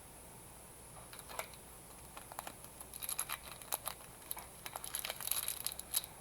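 Crinkling and light clicking from trading cards and a card pack being handled, starting about a second in and growing busier and louder.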